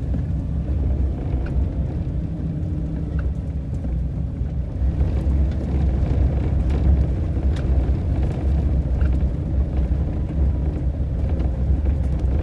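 Ram ProMaster van driving on a dirt road, heard from inside the cab: a steady low rumble of engine and tyres with scattered small rattles and clicks.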